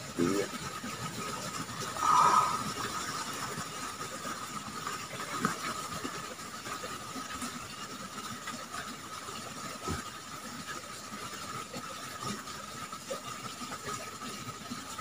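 Steady forest ambience: a constant high-pitched drone over an even hiss, with a brief louder noise about two seconds in.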